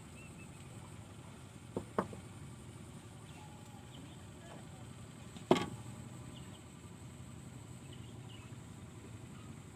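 Quiet outdoor background with a few faint chirps, broken by two short knocks about two seconds in and a single louder knock about five and a half seconds in.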